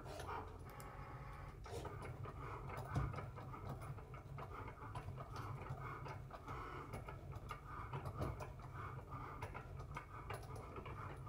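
Cricut electronic cutting machine cutting craft board: the carriage motor whirs as the tool head travels back and forth across the mat, with small ticks and clicks, the sharpest about three seconds in.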